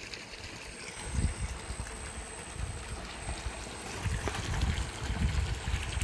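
Water pouring steadily from a 1.5-inch PVC pipe outlet into a swimming pool, a continuous splashing rush of pumped flow. Irregular low rumbles come through about a second in and again over the last two seconds.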